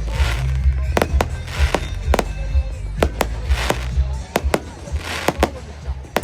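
Firework display: a rapid run of sharp aerial shell bangs, about two a second, with bursts of crackling between them, over loud bass-heavy music.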